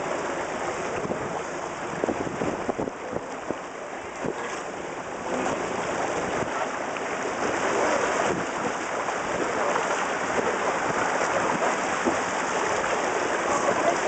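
Choppy sea water splashing and surf breaking on rocks, a dense steady wash of noise, with the calls of a large sea lion colony mixed faintly into it.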